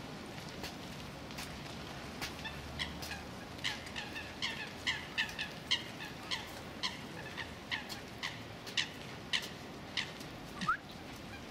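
Birds calling: a run of short, sharp calls, a few a second, over a steady hiss, with one short rising call near the end.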